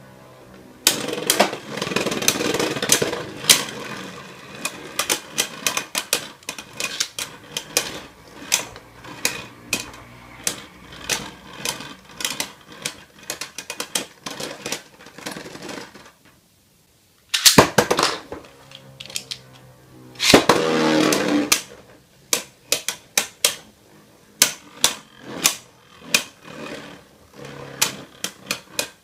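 Two Beyblade Burst tops spinning in a plastic stadium, clashing again and again with irregular sharp clicks and knocks, and spells of rapid rattling and scraping as they grind against each other. The sound drops out for about a second past the middle.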